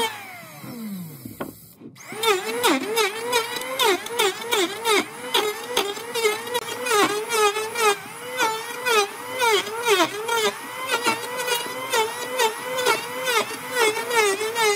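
Electric hand planer winding down in a falling whine, then after a short break running again at full speed as it is pushed over the end grain of a tree-trunk slice, its pitch dipping briefly about twice a second as the cutter bites on each pass.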